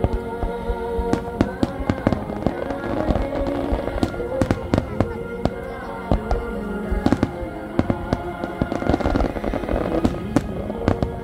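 Wide barrage of aerial firework shells and star mines bursting in rapid, irregular succession, many sharp bangs a second. Music with sustained notes plays along with the display.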